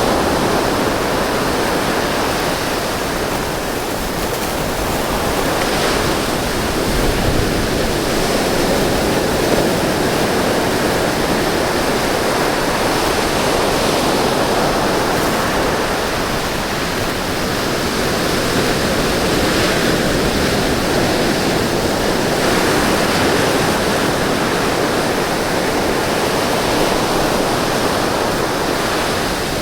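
Ocean surf breaking and washing on the shore: a continuous loud rush that swells and eases slowly.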